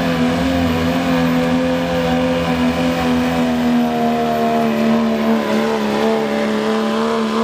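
Turbocharged Cummins inline-six diesel in a Dodge Ram pickup running flat out under full load while pulling a weight sled, a loud steady engine note that sags slightly lower in pitch over the second half.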